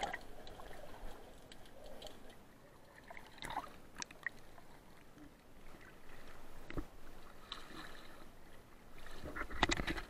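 Sea water moving around an action camera in its waterproof housing, underwater and then at the surface: muffled sloshing with scattered clicks and knocks, growing into louder splashing of small waves against the housing near the end.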